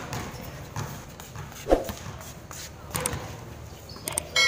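Basketball bouncing on a concrete court, a few irregular thuds about a second apart, with players' footsteps. Near the end the ball strikes the metal rim with a clang that keeps ringing.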